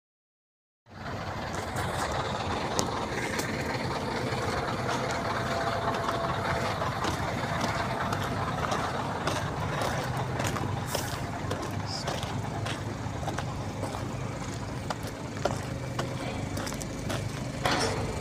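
Construction-site noise: a diesel engine running steadily with a low hum, with scattered light clicks and knocks. It cuts in abruptly about a second in, after dead silence.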